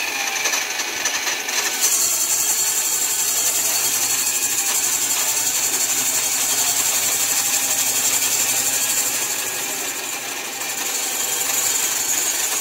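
Drill press running a large hole saw into a round wooden post. The motor hums, and about two seconds in the saw teeth bite into the wood, giving a loud, steady cutting noise with a strong hiss that runs on until shortly before the end.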